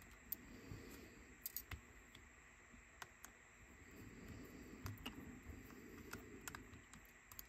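Faint, irregular small clicks of a screwdriver and small tools on the tiny screws and parts of a Sony WM-EX999 cassette Walkman being disassembled, about a dozen scattered ticks over a low hum.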